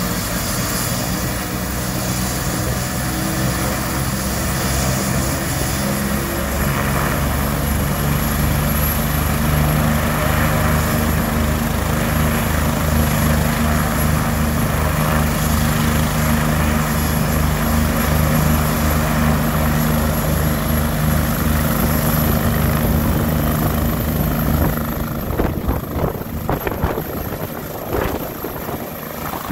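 State police twin-turbine Bell 429 helicopter running on the ground with its rotor turning: a steady turbine whine over an even rotor beat. About 25 seconds in the steady tones give way to an uneven, pulsing rotor noise as the helicopter readies to lift off.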